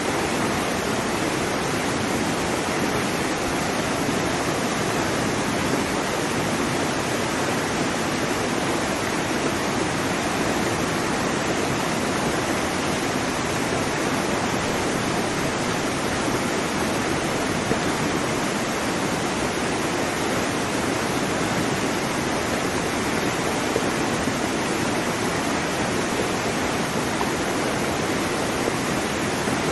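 Waterfall: a steady, dense rush of falling water, even throughout with no breaks or single splashes.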